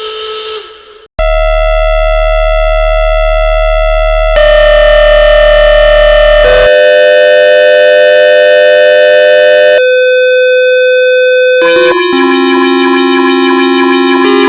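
Electronic emergency-alert attention signal: loud, steady synthesized tones that change abruptly to a new pitch or chord every two to three seconds, after a short break about a second in.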